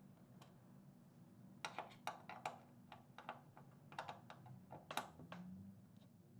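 Faint, irregular clicks and taps of a 1/4 inch Allen key working in a 5/16 Allen head bolt as it is tightened on a metal bed-frame rail, starting about a second and a half in, over a low room hum.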